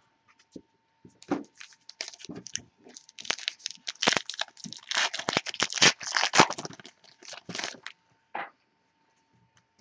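Baseball card pack wrapper being torn open and crinkled, with the cards being handled: a run of sharp crackles from about a second in until near the end, busiest in the middle.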